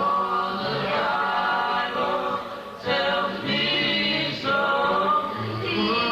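A cappella gospel vocal group singing in harmony, several voices at once with no instruments. The singing dips briefly about two and a half seconds in, then carries on.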